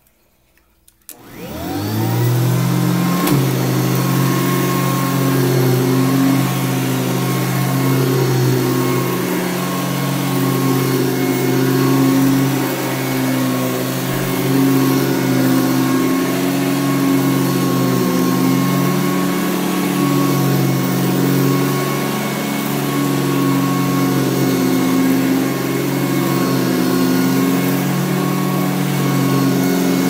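Hoover Convertible upright vacuum cleaner switched on about a second in, its motor spinning up with a rising whine, then running steadily on carpet with its four-row bristle brush roll, the hum wavering a little as it is pushed back and forth.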